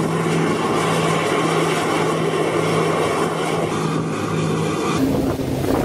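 Steady engine hum over rushing sea and spray noise; about five seconds in the sound cuts to a different, slightly higher hum.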